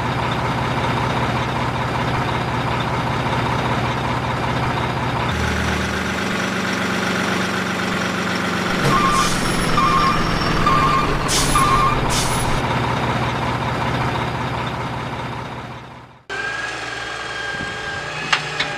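Heavy truck sound effect: a diesel engine running, with a short run of reversing beeps and brief air-brake hisses about 9 to 12 seconds in. It cuts off suddenly about 16 seconds in, and a lighter mechanical whir takes over.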